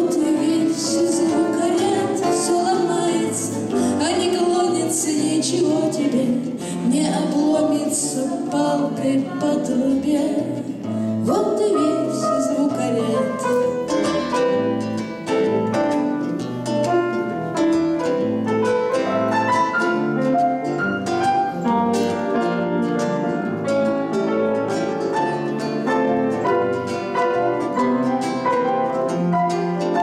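Instrumental interlude: a mandolin plays a tremolo melody over grand piano accompaniment. From about eleven seconds in, the playing turns to many quick plucked and piano notes.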